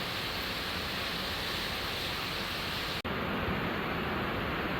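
Steady rain falling, an even rushing hiss. About three seconds in it breaks off for an instant and resumes duller, with less hiss.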